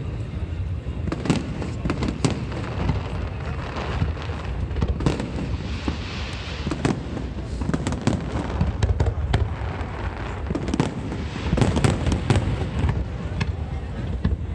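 Fireworks show: a dense, continuous barrage of booming shell bursts over a steady low rumble, with a hissing crackle about six seconds in.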